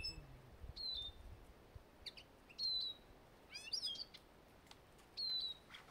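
Small finches calling: short, high chirps that drop slightly in pitch, repeated about every two seconds, with a quick twittering phrase near the middle.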